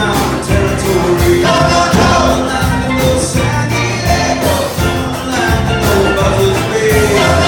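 Live band playing an up-tempo song with a steady beat.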